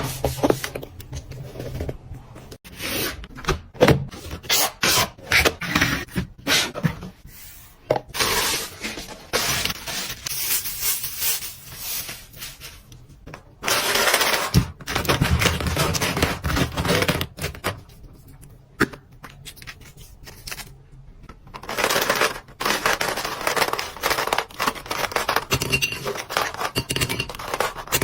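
Fast, hard fingernail tapping and scratching on product packaging, a quick run of sharp clicks broken by stretches of scraping, rubbing and tearing.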